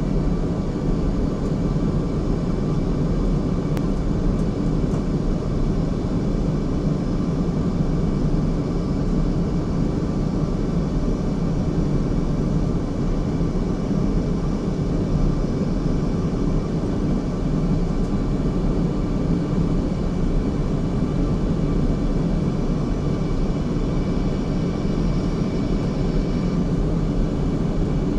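Airplane toilet ambience: the steady low rumble and hum of the aircraft heard from inside the lavatory, with faint steady tones above the rumble.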